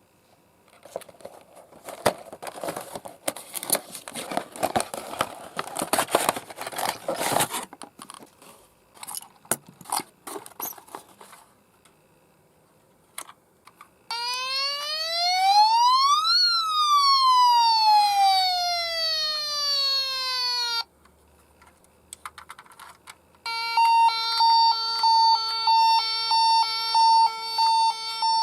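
Toy ambulance minicar's electronic siren. After several seconds of crackling handling noise and a few clicks, it plays a wail that rises quickly and falls slowly. After a short pause comes a repeating electronic siren pattern, pulsing about twice a second.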